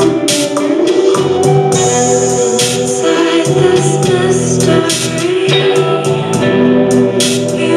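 Live synth band playing: long held synthesizer keyboard chords and electric guitar under a woman singing, with short high percussion ticks keeping a steady beat.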